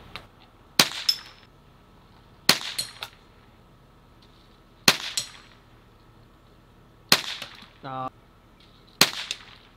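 BB gun (CO2 air pistol) fired five times, about two seconds apart. Each sharp pop is followed a fraction of a second later by a smaller tick or ping as the BB strikes the steel targets.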